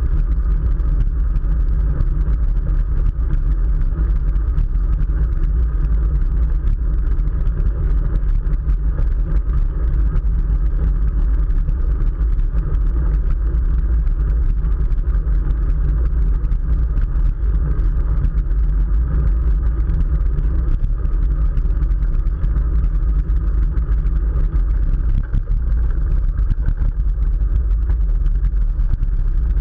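Steady wind rumble and road noise on the microphone of a camera riding along on a moving bicycle.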